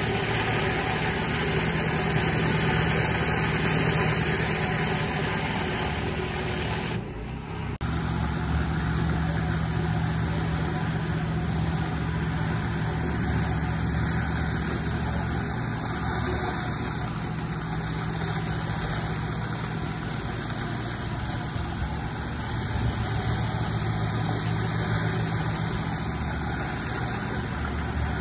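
Pressure washer's engine running steadily, with the hiss of water jets from a rotary flat surface cleaner on wet stone paving. The sound drops briefly about seven seconds in, then carries on unchanged.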